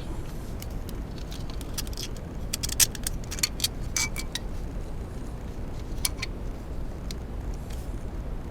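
Small metal clinks and taps of a bolt and nut being handled and fitted by hand while mounting an ignition coil: a scatter of sharp clicks, most between about two and four seconds in and one more about six seconds in, over a low steady hum.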